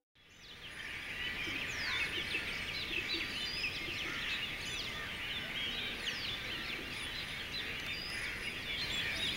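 Dawn chorus of many birds chirping and whistling at once, dense overlapping short calls over a steady background hum, fading in over the first second.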